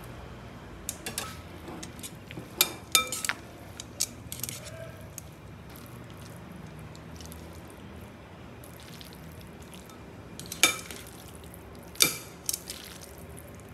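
Stainless steel tongs clinking against a glass bowl while tossing cooked spaghetti: a handful of sharp, briefly ringing taps, one cluster in the first few seconds and another near the end, over a low steady hum.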